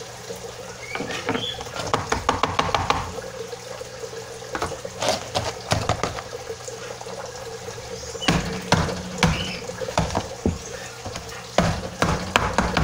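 Dried luffa sponge gourd pressed and knocked against a wooden tabletop to shake its seeds out: scattered clicks and taps, turning into quick regular knocking near the end.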